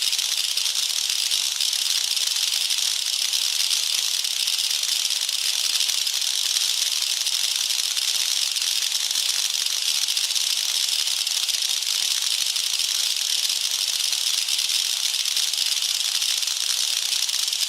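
Designed sci-fi electric-field sound effect: a steady, noisy texture of fine crackling particles, high-pitched with almost no low end, holding an even level throughout.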